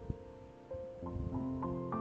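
Background piano music: soft melodic notes that thin out briefly, then pick up again with a new note every few tenths of a second from about halfway in.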